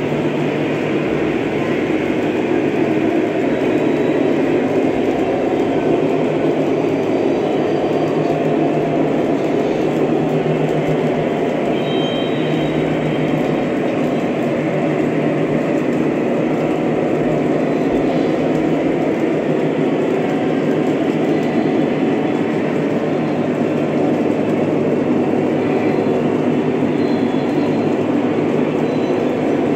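Several Lionel O-gauge model trains running at once on three-rail track: a steady, continuous rumble of wheels and locomotive motors.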